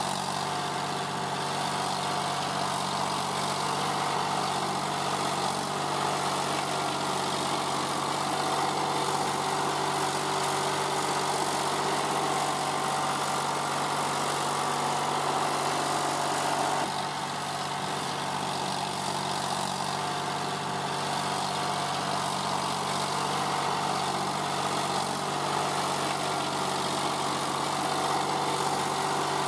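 John Deere 5310 tractor's three-cylinder diesel engine running steadily under load as it pushes a front leveling blade through straw and soil. The level drops briefly a little past the middle, then carries on.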